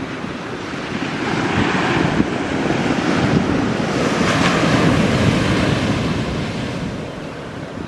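Airbus A220-300's Pratt & Whitney PW1500G geared turbofans on landing approach, a rushing jet noise that swells to a peak about halfway through and then eases off as the airliner passes. Wind buffets the microphone throughout.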